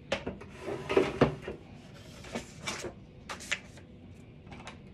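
A large craft scoring board and tools being fetched and set down on a work table: a cluster of knocks and clatter about a second in, then scattered lighter clicks.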